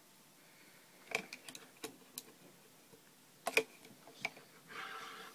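Light plastic clicks and taps as the battery connector is plugged back into a Uniden D1560 cordless phone handset and the parts are handled. A sharp click comes about a second in, a louder double click about three and a half seconds in, and a short buzzy sound near the end.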